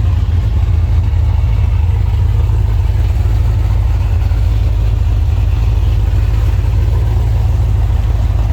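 Car engines and exhausts running on a street full of show cars: a loud, deep, steady low rumble that flutters without letting up.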